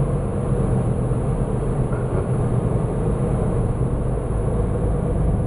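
Steady road noise inside a moving car's cabin: tyres rolling on asphalt with the engine running underneath.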